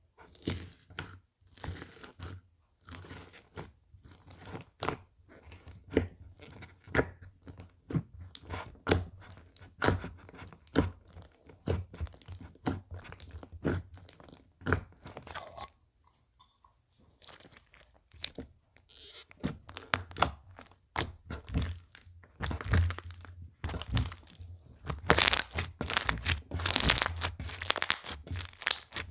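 Slime being squished and poked by hand, making a long run of crunchy crackling clicks and pops, with a short lull a little past the middle and louder, denser crackling near the end.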